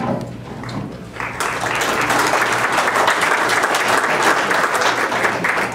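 An audience clapping. The applause starts about a second in and keeps up steadily.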